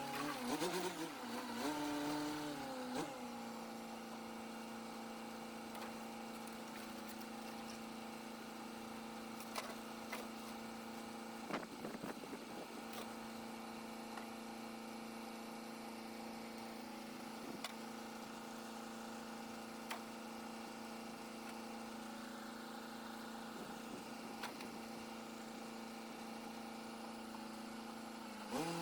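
Engine of an M816 military wrecker truck running: its pitch shifts up and down in the first few seconds, then it holds a steady speed. A few short sharp knocks sound over it.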